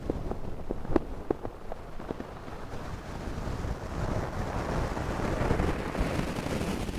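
Close-miked sleeper's breathing: a few sharp crackles, like fabric or bedding rustling against the microphone, then a long slow breath that swells for several seconds and fades near the end.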